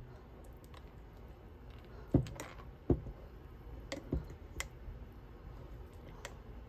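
A silicone spatula stirring urad dal batter with ice cubes in a steel pot: the ice and spatula knock against the pot in a few irregular clicks, the loudest two about two and three seconds in.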